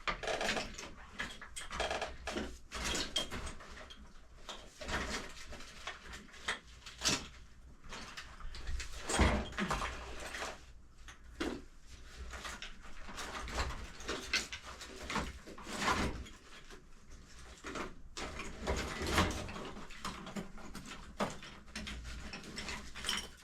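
Irregular clicks, knocks and rustling of hands working on RC truck parts and tools at a workbench.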